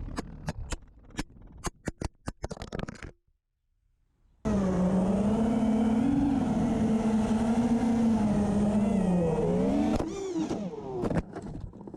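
FPV quadcopter's electric motors running, a steady pitched whine that wavers up and down with throttle, dipping and breaking up near the end. Before it comes a quick run of sharp clicks, then a moment of silence.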